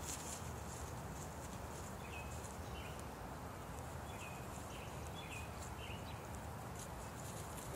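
Steady outdoor background hiss with a few faint, short, high bird chirps repeated through the middle of the stretch.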